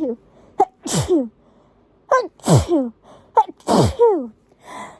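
A person's sneezing fit: three loud sneezes in quick succession, about one every second and a half. Each is led by a short, sharp catch of breath and ends in a voiced tail that falls in pitch.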